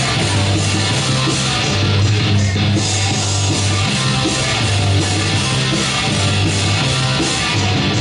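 Loud rock music with electric guitar over a bass line that moves in steady held notes.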